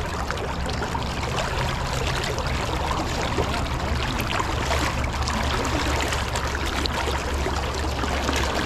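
Shallow river current rushing and gurgling around a wader's legs, a steady, even wash of water.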